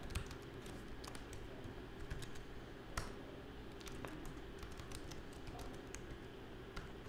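Computer keyboard typing: faint, irregular keystrokes, with one sharper click about three seconds in.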